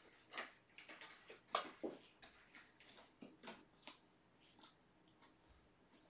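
Kittens moving about in their fabric bed: a run of short, irregular rustles and taps that thins out after about four seconds.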